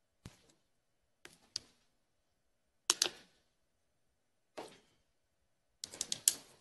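Irregular sharp knocks and clicks with silence between them, the loudest about three seconds in and a quick run of several near the end.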